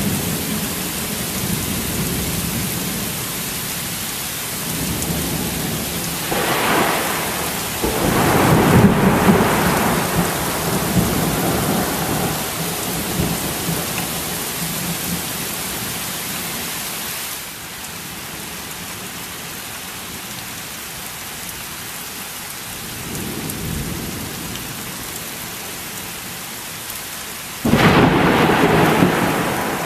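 Heavy rain falling steadily, with thunder rolling over it: a long rumble swelling about six to twelve seconds in, a fainter one later, and a sudden loud clap near the end.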